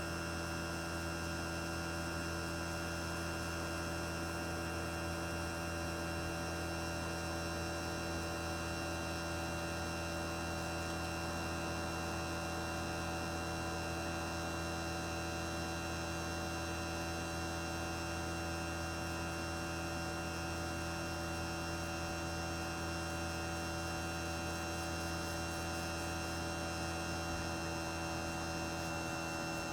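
Outdoor unit of a 1995 Toshiba RAS-251ETS air conditioner running in cooling mode with its fan at maximum. The twin-rotary compressor gives a steady, unchanging hum with several steady tones over the noise of the fan.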